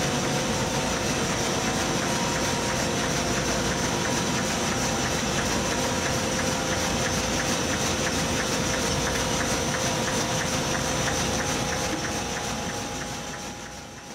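Industrial egg conveyor and grading machinery running: a steady mechanical hum and rattle with a faint, regular clicking, fading out near the end.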